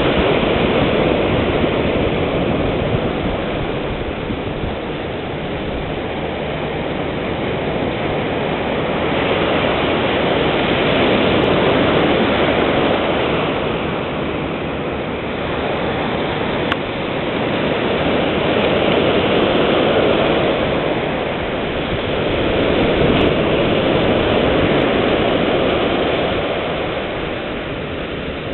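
Ocean surf breaking on a sandy beach: a continuous wash of waves that swells and eases every several seconds.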